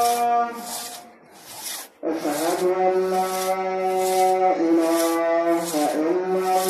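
A two-man crosscut saw rasping back and forth through a standing tree trunk, about two strokes a second, pausing briefly about a second in. A steady droning tone runs under the strokes and shifts pitch a few times.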